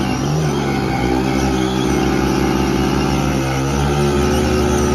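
Two Hero Splendor motorcycles' single-cylinder engines held at high revs under heavy load, rear wheels spinning, as they pull against each other on a tow rope. The engine note stays steady, shifting in pitch every second or so.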